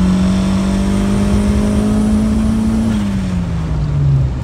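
Turbocharged Honda Civic four-cylinder engine heard from inside the car, pulling under boost with its pitch rising steadily. About three seconds in the throttle is lifted: boost drops away and the engine note falls.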